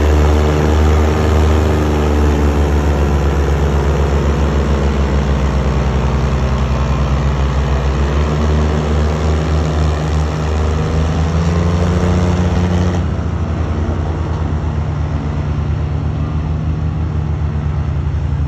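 Diesel tractor engine running under load as it hauls a heavily loaded sugarcane trolley, a steady low drone whose pitch rises and falls slightly. About two-thirds of the way through, the sound changes abruptly as the high hiss drops away.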